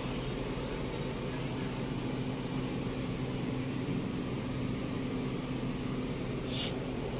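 2004 GMC Yukon's V8 engine idling with a steady, even hum. A brief high hiss comes near the end.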